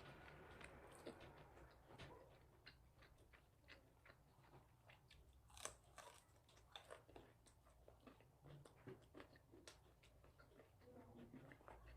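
A person chewing and biting food close to the microphone: quiet, with many small irregular clicks, one sharper one about halfway through.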